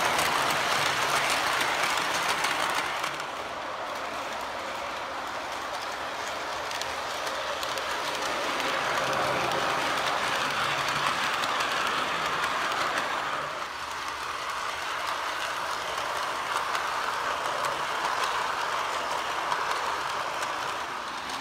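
MTH O-gauge R33 model subway train running on track: a steady rolling clatter of wheels over the rails. It drops a little in level about three seconds in.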